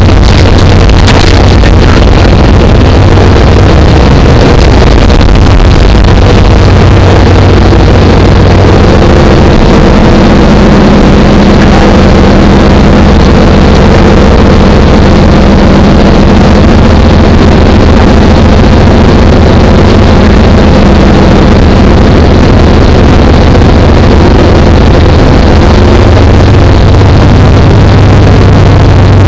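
Aircraft engine droning steadily, heard from inside the cabin.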